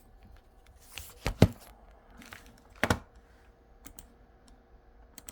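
Typing on a computer keyboard: a few scattered keystrokes in short clusters, the loudest pair about a second and a half in and another quick cluster near three seconds.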